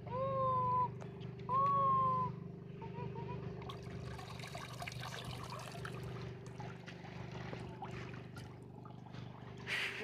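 Small puppy whining twice, two long high-pitched cries in the first two seconds, a puppy scared of the cold water. Then a stretch of splashing and rustling as it is lifted out of the shallows in a towel, over a steady low hum.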